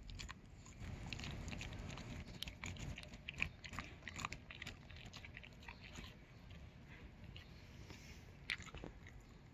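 A dog pulling up and chewing grass: irregular crisp bites and crunches over a soft rustle, busiest in the first few seconds.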